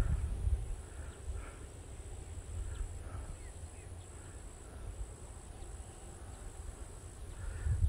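Wind buffeting the microphone in uneven gusts, with a jolt at the start. A faint, steady, high insect buzz sits behind it.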